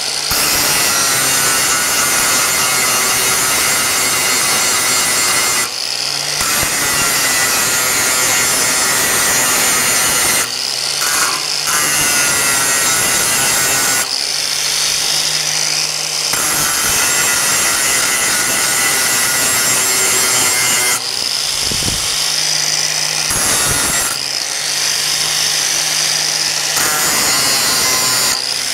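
Electric angle grinder with a thin cutting disc cutting into steel, a loud, harsh, continuous grinding noise. Several times the cut eases for a moment as the disc comes off the metal, and the motor's steady running hum shows through.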